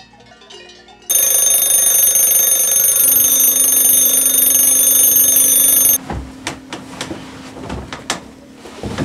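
Alarm clock ringing loud and steady for about five seconds, starting about a second in and cutting off suddenly. Scattered knocks and rustling follow. Faint plucked music notes come before the ringing.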